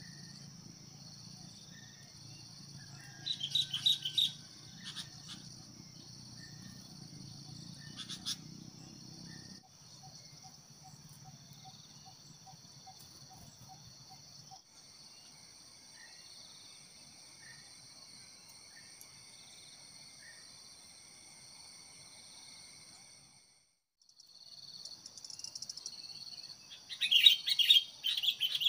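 Sooty-headed bulbuls calling in short, loud bursts a few seconds in and again near the end, over a steady high drone of insects.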